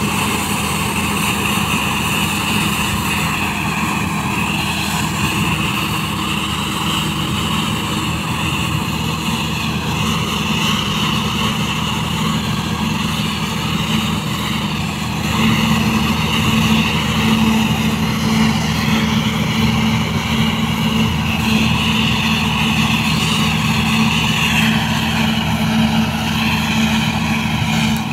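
New Holland TC5070 combine harvester running as it harvests barley: a steady engine drone with a wavering high whine above it. About halfway through, the sound grows louder and a higher hum joins it.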